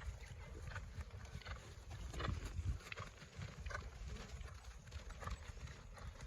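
Ponies trotting: a run of hoofbeats from more than one pony, over a steady low rumble.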